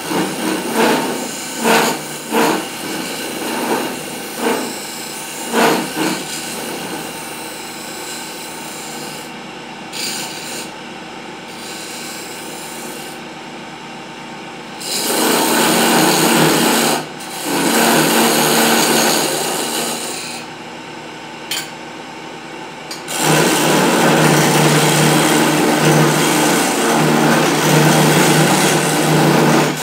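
Electric wood lathe running while a hand-held turning chisel cuts into a spinning wooden spindle, a rasping, scraping sound over the steady hum of the lathe motor. First comes a series of short cuts about once a second, then a stretch with only the lathe running, then longer cuts and one continuous cut from about two-thirds of the way in.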